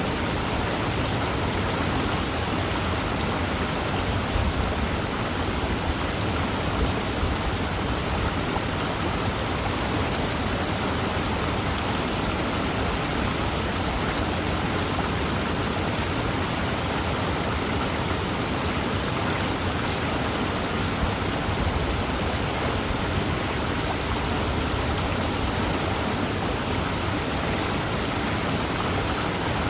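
Fast-moving river running in a steady, unchanging rush of water noise.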